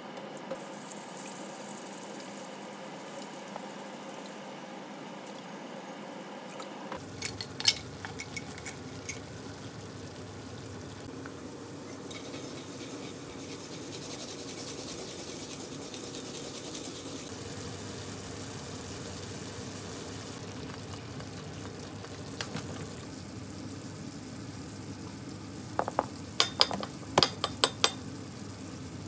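Kitchen sounds over a steady low hiss: a few light knocks about seven to nine seconds in, then near the end a metal spoon clicking quickly against a small glass bowl as potato starch is stirred into water.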